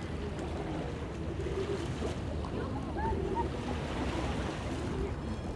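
Steady low rumble of outdoor ambience with wind on the microphone, and faint voices of people in the background.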